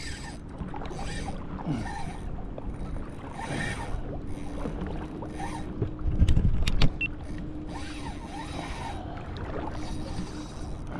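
Small boat or kayak sitting on calm water: water lapping and wind noise with a faint steady hum, and a short burst of knocks and clicks about six seconds in.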